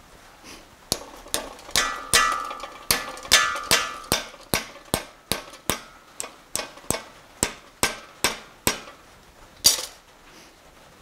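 Hand hammer striking a red-hot steel bar clamped in a bench vise, bending it over the jaw into a 90-degree elbow: about two dozen blows, two or three a second, the early ones ringing, then one harder final blow near the end.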